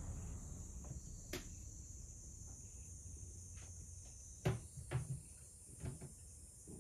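Scattered light knocks and clatters of things being handled in a kitchen, the loudest two close together about halfway through, over a steady faint high hiss.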